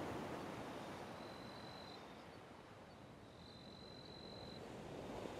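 Soft, even rushing noise like distant surf, fading down about halfway through and swelling again near the end. A faint high steady tone comes and goes about every two seconds.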